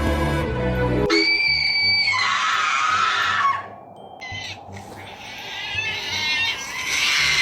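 Background music that stops about a second in, replaced by a held, high-pitched scream-like sound effect and then further noisy meme sound effects.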